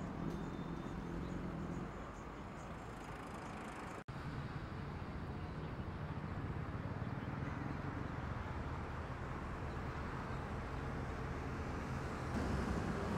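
Several sport motorcycle engines idling together in a low, steady hum. It cuts out briefly about four seconds in and gets louder near the end.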